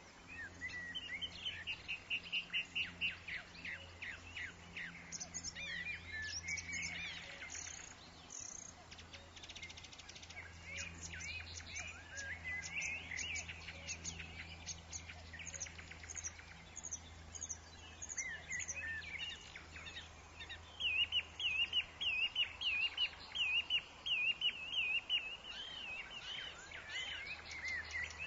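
Several woodland songbirds chirping and singing, with quick repeated trills, loudest near the end. A faint, steady low background sits underneath.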